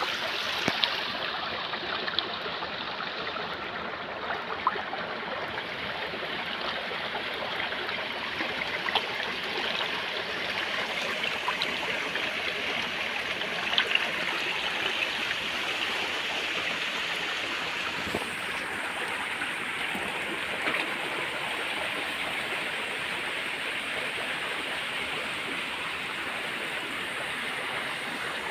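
Water of a small stream flowing steadily, with occasional brief splashes and ticks.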